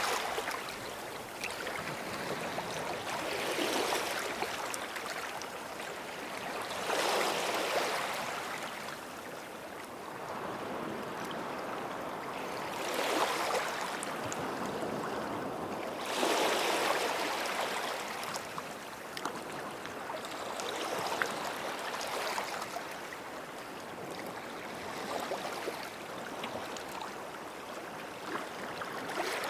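Small sea waves breaking and washing up on the shore, each wave a swell of rushing surf that builds and fades every few seconds.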